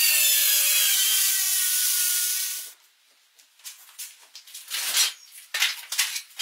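Bosch circular saw cutting through a rough wooden slab, a loud steady whine that cuts off suddenly about two and a half seconds in. It is followed by a few short scrapes and knocks.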